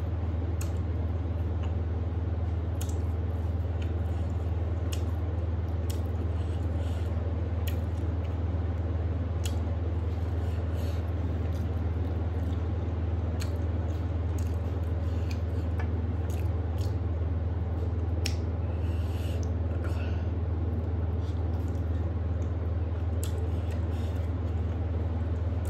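Eating by hand: fingers mixing rice and curry on a metal plate, and chewing, heard as short soft clicks and squishes scattered throughout. A steady low hum runs underneath and is the loudest thing.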